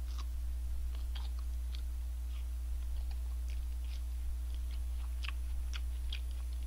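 A person chewing a mouthful of fried chicken burger with lettuce close to the microphone: scattered soft crunches and wet mouth clicks over a steady low hum.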